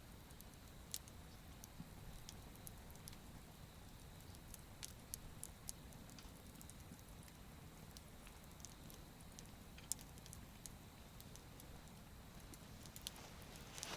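Wood fire crackling faintly, with scattered sharp pops and a few quick snaps near the end, over a faint low rumble.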